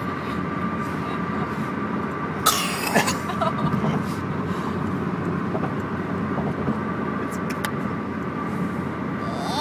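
An infant gasping twice in quick succession, about two and a half seconds in, sharp, short intakes of breath made deliberately for attention, over a steady background hum.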